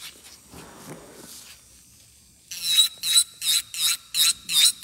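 Electric nail drill bit sanding the surface of an acrylic nail in quick back-and-forth passes, each pass a sharp, high grinding stroke, about three a second. The strokes start a little past halfway in, after a couple of seconds of quieter rubbing.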